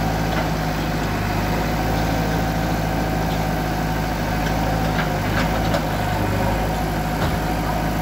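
JCB 3DX backhoe loader's diesel engine running steadily while the backhoe arm pushes at a brick wall. A few short knocks of falling brick come from about five seconds in and again near seven seconds.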